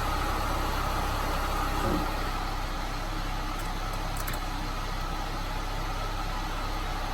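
Peugeot 206 engine idling steadily, with a brief knock about two seconds in.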